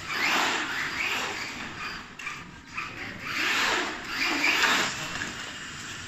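A radio-controlled monster truck's motor, gears and tyres on tiled paving, whirring in about three bursts as it is driven forward and turned.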